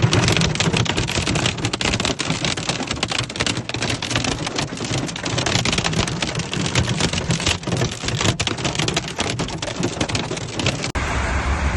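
Heavy rain falling: a loud, dense patter of countless drops. Near the end it cuts off abruptly and gives way to a steadier low hum.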